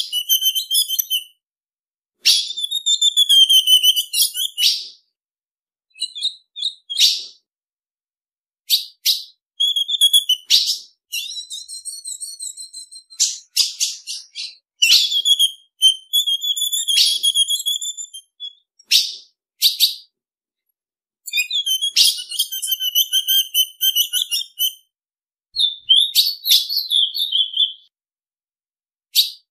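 Female ultramarine grosbeak (azulão) calling: bouts of high chirps and short warbled phrases lasting a second or two each, with sharp chip notes mixed in. The bouts repeat with brief silent gaps between them.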